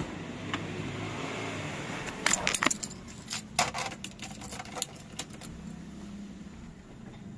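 Car door latch clicking open, then a bunch of keys jangling with sharp clicks as the key goes into the Renault Twingo's ignition and is turned to the on position, before cranking.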